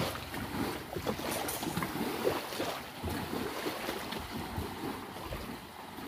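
Steady rushing of wind on the microphone mixed with surf, with faint scattered clicks and scrapes.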